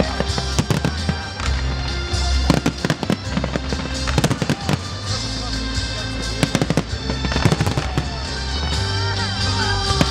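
Fireworks bursting and crackling in quick, irregular volleys, over loud music with sustained bass notes.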